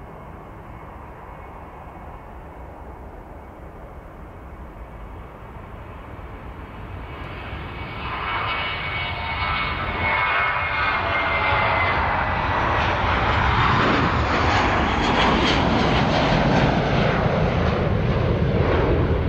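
Airbus A340-600's four Rolls-Royce Trent 500 jet engines spooling up to takeoff thrust: a low rumble builds over about six seconds into a loud, steady jet rumble with a whine that slides slightly lower, as the takeoff roll begins.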